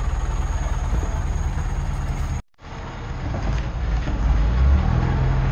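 Kerala houseboat's engine running with a steady low rumble. The sound drops out for a moment about two and a half seconds in, then carries on.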